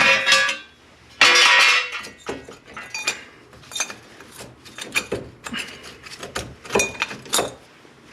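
Metal parts clinking and clanking as the freed old front hub assembly and the hub puller tool are handled: a sharp knock at the start, ringing clanks in the first two seconds, then lighter clinks and knocks.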